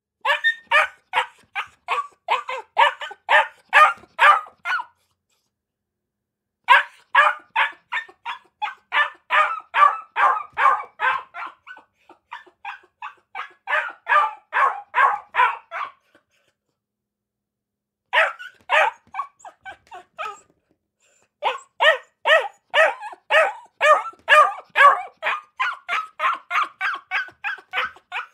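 A dog barking in quick runs of about three barks a second, stopping for a second or two between runs.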